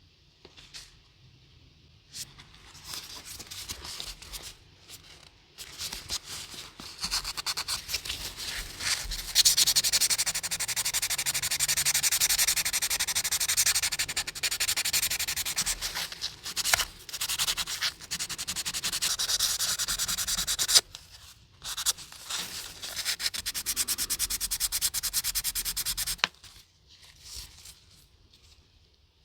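Hand abrading of a diecast model car body: rapid back-and-forth rubbing strokes with a dry, hissing scrape. It starts a couple of seconds in, pauses briefly a few times and stops a few seconds before the end.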